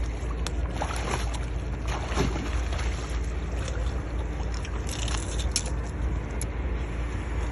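Wind rumbling steadily on the microphone over the sea sloshing against the breakwater, with scattered faint clicks.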